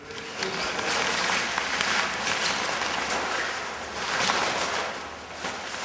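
Fabric wing bag rustling and swishing as it is dragged off a folded flexwing microlight wing, in several long surges.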